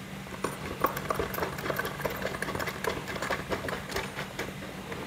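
Irregular small clicks and metallic taps from gaming-chair bolts being hand-threaded and tightened into their holes, over a steady low hum.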